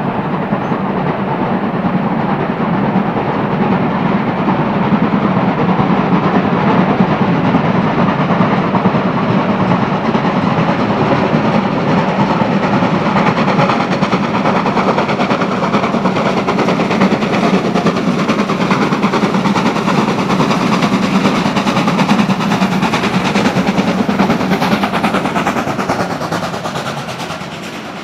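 Steam locomotive working under full steam, its loud exhaust beats coming quick and continuous as it approaches and passes, with the level falling away near the end as the coaches roll by.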